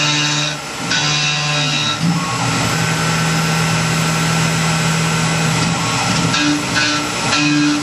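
Tormach PCNC 1100 CNC mill cutting aluminum at 4000 rpm: a steady hiss of cutting with humming tones that switch between a lower and a higher pitch as the cut changes, the lower hum held for about three seconds in the middle.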